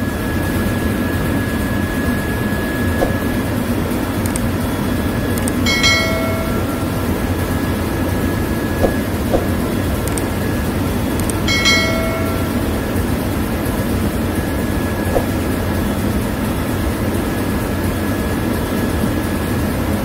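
Ship's engine-room overhead crane travelling to the right along its rail under its electric travel motor, over steady engine-room machinery noise. Two brief high-pitched tones sound about six and twelve seconds in.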